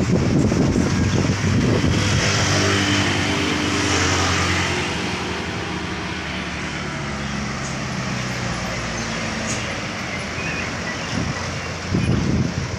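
Hino flatbed truck's diesel engine running as it rounds a hairpin bend, its note sagging slightly in pitch and fading over about five seconds. Near the end another truck's engine comes through close and loud, with a rough, pulsing note.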